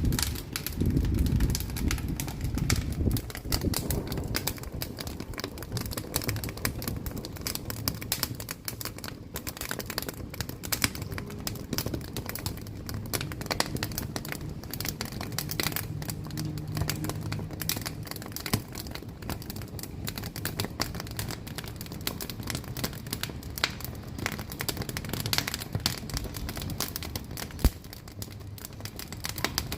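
Wood fire burning in a wood-burning cookstove, crackling and popping densely and irregularly. A low rumble of flame is strongest in the first few seconds, and there is one sharper pop near the end.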